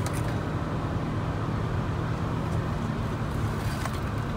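Cabin noise of a Toyota SUV in motion: a steady low engine drone mixed with tyre and road rumble as it is driven through a curve at speed. A couple of faint ticks sound near the start and near the end.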